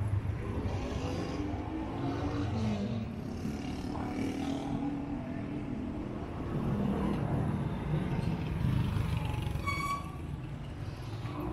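Street traffic: motor vehicles, including a motorcycle, running and passing as a steady low rumble. A brief high-pitched beep comes near the end.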